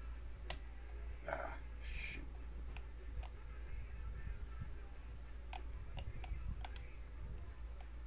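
Lock picks working inside the Devil's Tower custom challenge lock: scattered light clicks of the tools against pins and tension wrench, with two short scraping sounds about a second and two seconds in.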